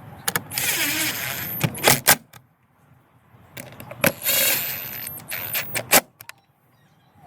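Socket tool running down the small 7 mm bolts of a car's air filter box cover: two spells of metallic tool noise about a second long each, with sharp clicks and knocks between them.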